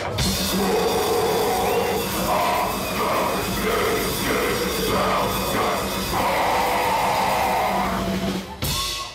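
Live rock band playing at full volume, with drums and guitar over a held low note. The music stops abruptly about a second before the end.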